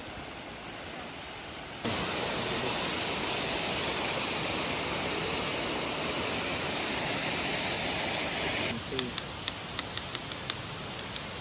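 Waterfall rushing in a steady, even roar of water; about two seconds in it jumps louder and much closer, and drops back near the end, where a few sharp clicks sound over the quieter rush.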